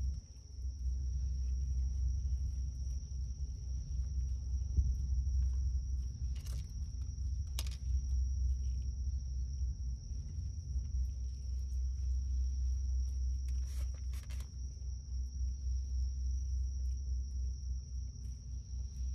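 Crickets trilling in a steady high-pitched drone over a constant low rumble, with a few brief rustles about a third of the way in and again in the second half.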